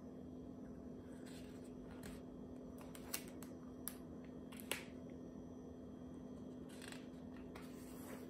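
Hands handling a hardcover picture book: soft paper rustles and a few small clicks as pages are turned and smoothed flat, over a faint steady hum.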